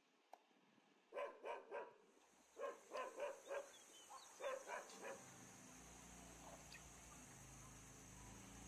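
A dog barking, about ten barks in three quick runs of three or four. After about five seconds a faint steady low hum sets in.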